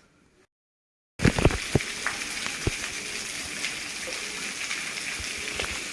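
Heavy monsoon rain pouring steadily, with scattered louder drips and splashes, the strongest just after the sound comes in abruptly about a second in.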